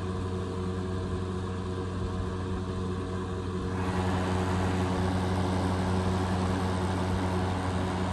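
Patton PUH680 electric milkhouse heater running: the steady hum of its small two-blade fan motor under a rush of blown hot air. The air rush gets louder about four seconds in.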